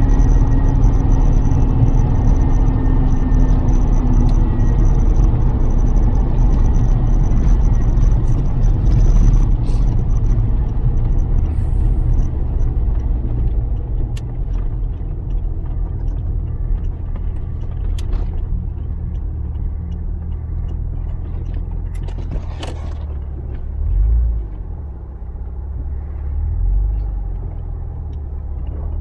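Lotus Carlton's twin-turbo 3.6-litre straight-six and road noise on the move: a continuous low rumble, louder over the first several seconds, then easing to a steadier, quieter level. A few sharp knocks come in the second half.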